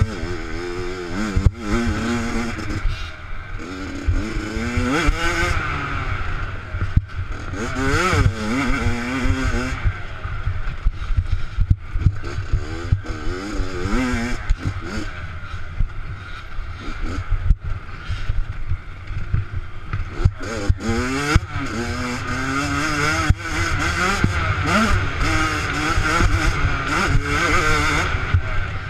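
Minibike engine heard close up from on board, revving up and falling back again and again as the rider accelerates and slows along a rough dirt trail. Scattered knocks and rattles come from the bike over bumps, under a steady low rumble.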